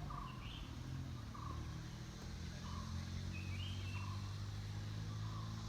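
A bird calling over and over, a short two-note call repeated about every second and a half, over a steady low drone.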